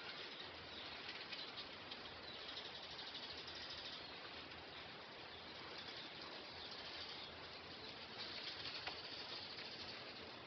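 Faint, steady outdoor background hiss, strongest in the higher range, with a few light clicks scattered through it.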